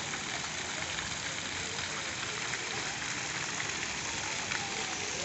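Water from a large tiered fountain's jets splashing and falling into its basin, a steady hiss of spray.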